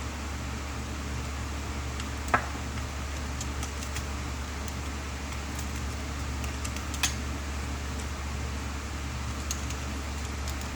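Small clicks and taps from handling small parts and tools while working on a drone's camera gimbal, two sharper clicks standing out about two and seven seconds in, over a steady low hum.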